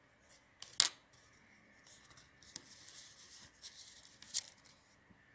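Small handling sounds of a dissecting needle and glass microscope slide: a sharp click about a second in, then a few seconds of soft scraping and rustling, with another click near the end.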